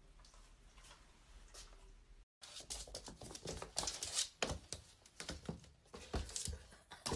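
Faint room tone, then, after a cut about two seconds in, a rapid, irregular clatter of taps and scrapes. It is a cat's paws and claws scrabbling on a hardwood floor as it bats a small ball along the floor.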